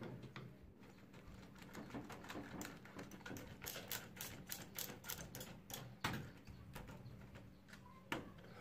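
Handheld driver clicking in quick runs as it turns and tightens the axle bolt of a scooter's front wheel, with small metallic clicks and taps of the bolt and fork. A single louder knock comes about six seconds in.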